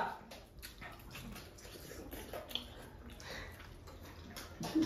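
Faint wet squishing of hands kneading rice and chicken curry on steel platters, with soft chewing and a few small clicks; a brief louder sound comes near the end.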